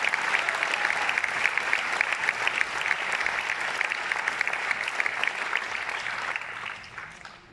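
Audience applauding, with dense clapping that thins out and fades away near the end.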